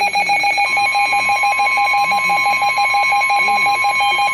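Overlapping emergency alert tones: a fast pulsing electronic beep, about eight a second, joined under a second in by a steady NOAA Weather Radio warning alarm tone, the tone that comes before a new warning is read.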